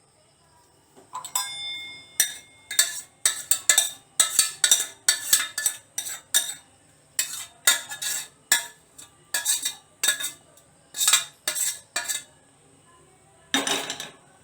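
A spoon stirring in a cup of tea, clinking sharply against the side roughly twice a second, after one ringing metal strike about a second in. A longer clatter of dishes comes near the end.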